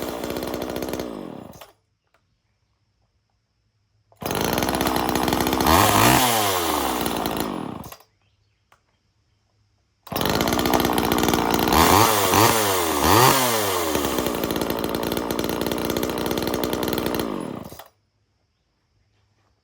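Homelite two-stroke chainsaw running at idle and blipped up to high revs and back, once in the second stretch and three times in quick succession in the third. The sound comes in three stretches that start and stop abruptly, with silence between them.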